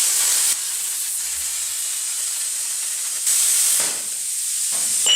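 A steady high hiss, louder for the first half second and again briefly a little over three seconds in.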